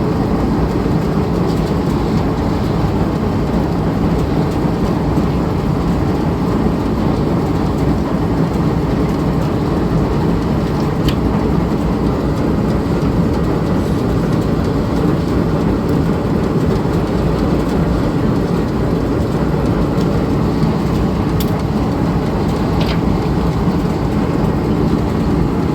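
Steady, unbroken low rumble at a constant level, with a few faint clicks.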